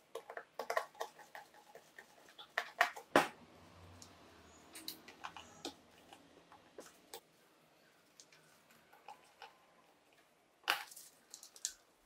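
Irregular small clicks and taps of wire handling: crimped wire lugs being fitted to the terminals of push buttons and indicator lights on a metal control-panel door. The two loudest knocks come about 3 seconds in and near the end.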